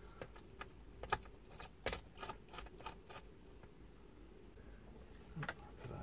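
Light clicks and taps of a small screwdriver and the laptop's screen frame and plastic parts being handled during disassembly. A quick run of small clicks for about three seconds, a pause, then a couple more near the end.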